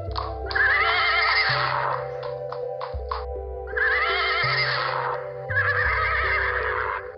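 A horse neighs three times, each whinny wavering and about a second long, over background music with held low notes. A few short knocks fall between the first two neighs.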